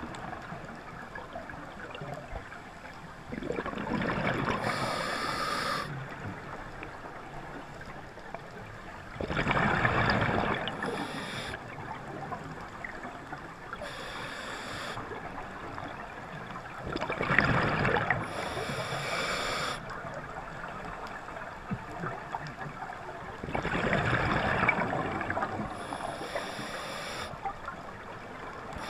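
Scuba diver breathing underwater through a regulator: exhaled air bubbles rush and gurgle past four times, about every six to seven seconds, over a steady underwater hiss.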